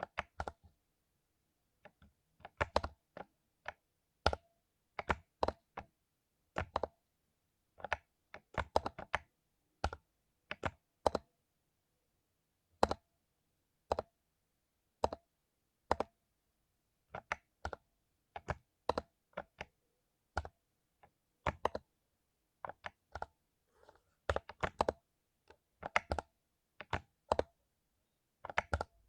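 Mechanical keyboard with lubed Cherry MX Silver linear switches being typed on slowly and unevenly: single keystrokes about one or two a second, with a few short quick runs of several keys.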